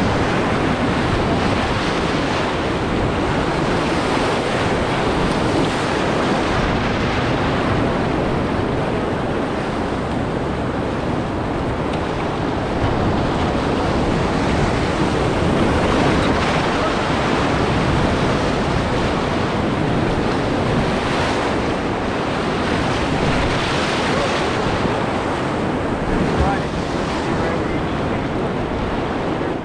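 Class III whitewater rapids rushing and churning steadily around a small inflatable raft, heard up close from the boat.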